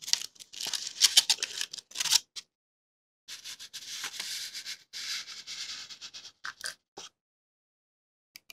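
Paper rustling and scraping as a folded sheet is handled. After a sudden break into dead silence, paper scrapes across a plastic cutting mat, followed by a few light ticks near the end.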